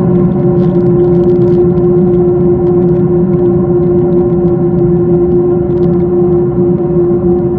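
Boeing 767-300ER cabin noise while taxiing after landing: a loud, steady drone of the jet engines and air system. A strong steady humming tone joins it right at the start and holds throughout.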